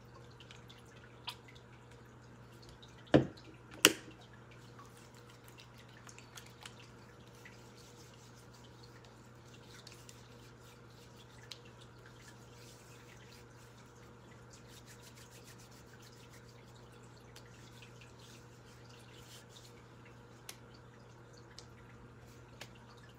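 Quiet room with a steady low hum and a few sharp clicks or taps. The two loudest come close together about three and four seconds in, with fainter single ticks later.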